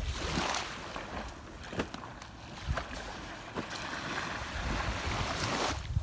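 Small waves washing in and hissing on a sandy shoreline, with light wind on the microphone. A few short scrapes come through as plastic spades dig into the wet sand.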